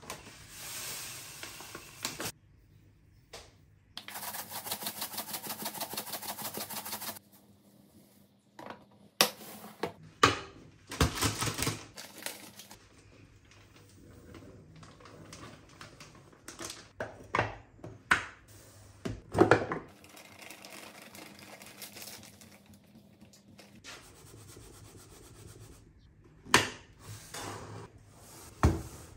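Loose tea granules poured from a packet into a plastic canister, with a dense rapid patter lasting about three seconds. Later flour is poured into another canister, and the plastic canisters and their lids knock and click as they are set in place.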